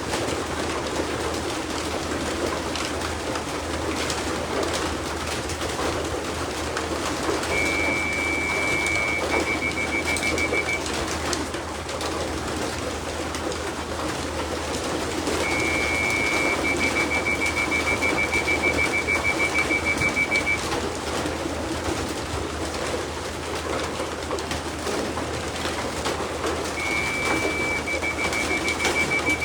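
A flock of racing pigeons cooing steadily as they come in through the loft traps. A high electronic beeping comes in three stretches of a few seconds each.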